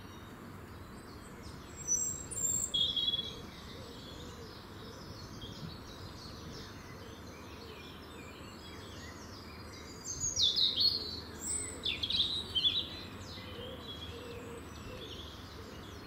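Wild birds singing and chirping in two spells, about two seconds in and again from about ten to thirteen seconds, over steady background noise.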